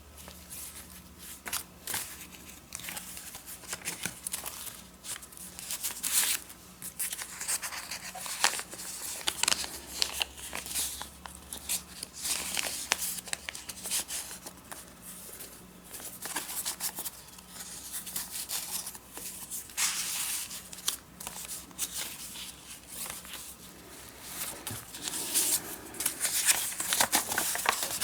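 Loose, unstitched handmade junk journal pages being handled and turned, paper rustling and crinkling in short, irregular bursts.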